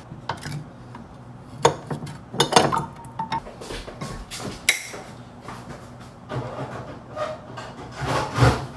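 Household objects being handled: a string of scattered knocks, clinks and rubbing as things are picked up, moved and set down.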